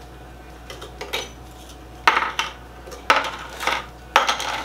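Round crackers dropped by the handful into the empty clear plastic bowl of a food processor, clattering against the plastic: a light clatter about a second in, then three louder ones about a second apart.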